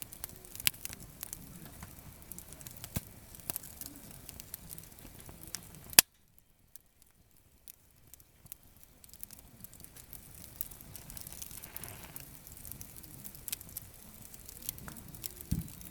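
Campfire of gathered firewood crackling, with scattered sharp pops. About six seconds in there is one loud click, then the sound drops to near silence for about two seconds before the crackling returns.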